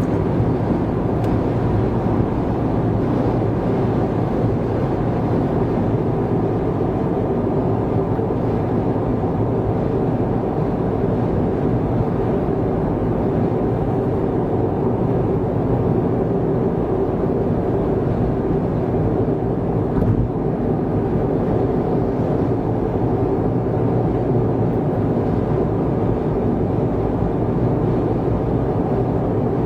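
Steady road noise inside a car cruising on an expressway: tyre and engine drone at an even level throughout.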